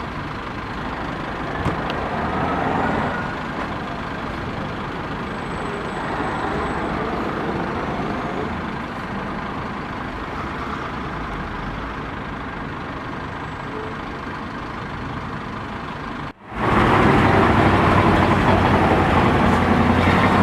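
Street traffic in a jam: car, truck and bus engines running and moving slowly. The sound cuts off about sixteen seconds in and comes back louder.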